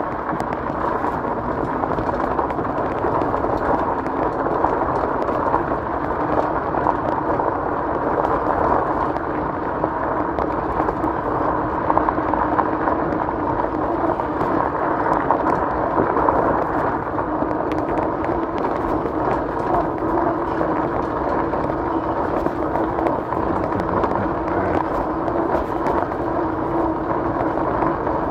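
E-bike rolling along a gravel and dirt trail: a steady noise of the tyres on the gravel, with a faint steady whine from the electric motor that grows clearer in the second half.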